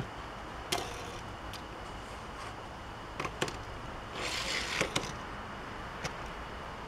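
A few light clicks of a die-cast toy car being handled and set down on plastic track, with a brief rustle about four seconds in.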